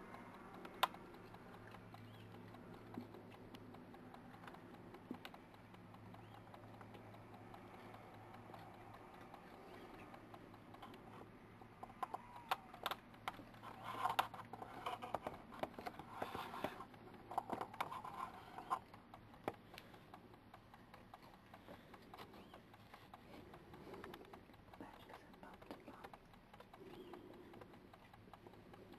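Badgers feeding on food scattered on the ground: faint crunching and clicking as they eat, with a busier spell of clicks around the middle. A low steady hum lies under the first third.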